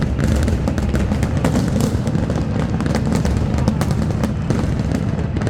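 Aerial fireworks exploding in a dense barrage: a rapid string of sharp bangs and crackles over a continuous low rumble.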